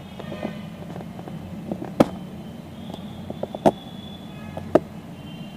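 Short sharp metallic clicks, the loudest three about two, three and a half and nearly five seconds in, as the lock clip is pressed by hand onto the pivot shaft of a Maruti Suzuki wiper link assembly and seats.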